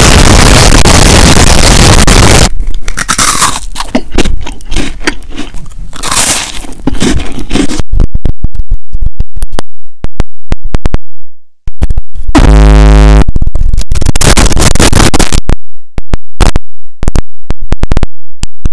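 Deliberately overdriven, clipping close-mic ASMR sounds: a dense blast of distorted noise for the first couple of seconds, then crackles and sharp clicks as fingers tap and handle a plastic Coca-Cola bottle with a lavalier mic clipped to it. About twelve seconds in there is a short low buzz, and near the end a white plastic bag crinkles.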